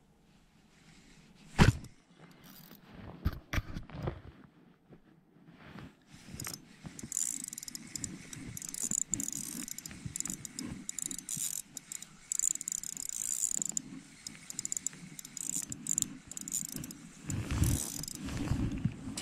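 Daiwa Exist spinning reel being cranked to retrieve line: a fast, fine mechanical whirring and ticking of its gears and rotor, starting about six seconds in. A few sharp handling knocks come before it, the loudest about a second and a half in, and louder bumps and rustling come near the end.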